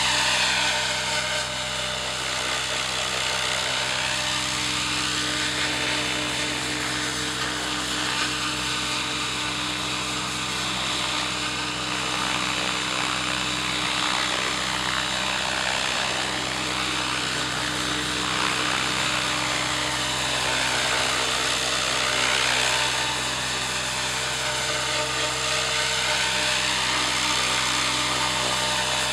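Radio-controlled model helicopter in flight: a steady motor and rotor whine whose pitch dips and rises over and over as it manoeuvres back and forth.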